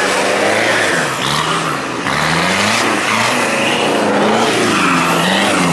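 Open-class 4x4 off-road race car's engine revving hard, its pitch rising and falling again and again as the throttle is worked.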